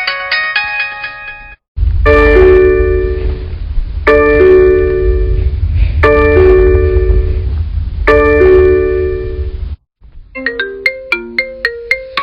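Custom phone ringtones played back to back: one melody cuts off after a second and a half, then a short bell-like electronic tune repeats four times about every two seconds over a heavy low rumble, and after a brief gap a quick melody of short plucked-sounding notes begins.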